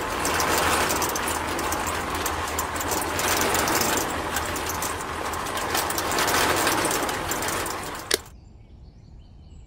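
Small electric motor of a miniature model concrete mixer running steadily as it turns the drum, then stopping with a sharp click about eight seconds in.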